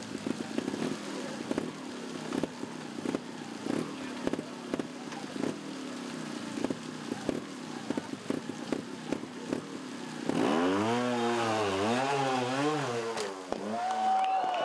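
Trial motorcycle engine blipped in short irregular bursts, with many sharp clicks and knocks as the bike is worked over rough ground. About ten seconds in, a louder engine sound swings up and down in pitch for about three seconds, and a steady higher tone starts near the end.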